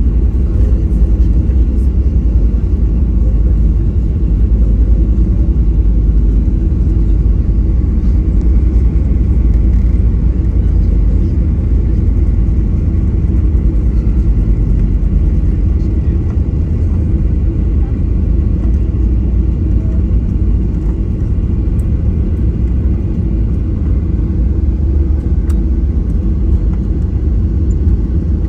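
Cabin noise of a KLM Boeing 737-700 rolling along the runway after landing: a loud, steady rumble of engines, airflow and wheels that eases slightly toward the end as the aircraft slows.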